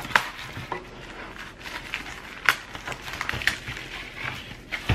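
Rustling of a padded plastic packaging sleeve as a flat panel is slid into it, with scattered sharp taps and clicks of handling against cardboard.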